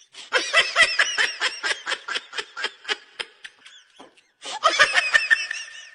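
A person laughing in quick, high-pitched bursts, two bouts of it with a short pause a little past the middle.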